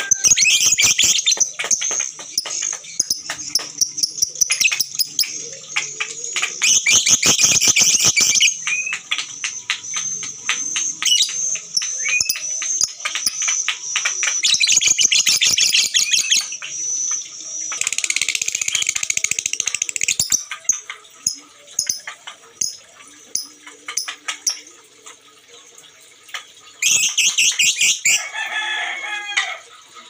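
Caged Fischer's lovebirds singing the long, rapid, high-pitched chattering trill that keepers call ngekek. It comes in several loud bursts, eases off in the last third, and flares up once more near the end.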